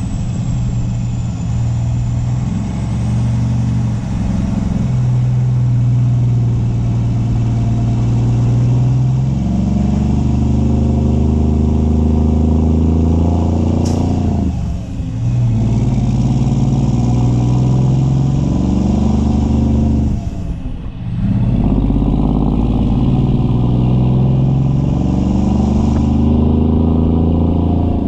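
Semi truck's diesel engine pulling under load, its pitch climbing and then dropping at two short breaks about halfway and about three-quarters through, as the gears are shifted. A sharp click comes just before the first shift.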